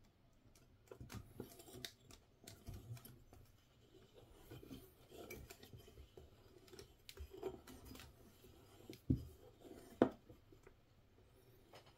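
Small hand tools working the steel wire of a handmade lure: scattered light metallic clicks and scrapes, with two sharper knocks about a second apart near the end.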